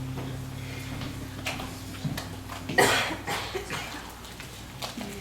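An acoustic guitar's last chord ringing and dying away, then a single loud cough about three seconds in, with a few small clicks and rustles.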